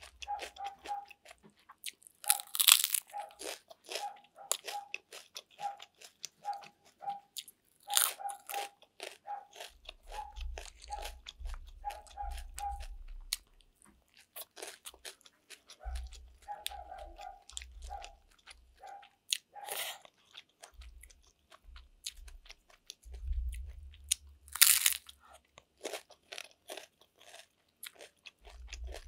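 Close-miked crunching and chewing of chicharon (deep-fried pork rind), with a few loud crunchy bites, about four in all, and wet chewing and lip sounds between them.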